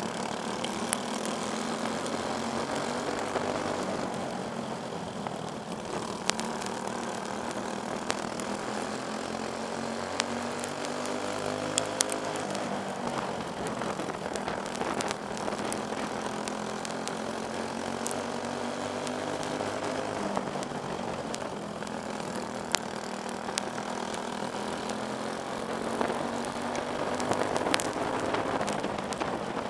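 Briggs & Stratton Animal single-cylinder four-stroke kart engines running at race speed, heard from the driver's helmet, the engine note rising and falling as the kart speeds up and slows with other karts close by. Occasional sharp clicks.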